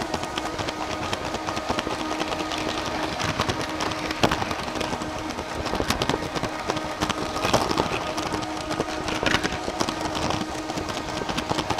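Long Lego train driven by 9V motors running along plastic track: a continuous rapid clatter and clicking of wheels and cars, with music underneath.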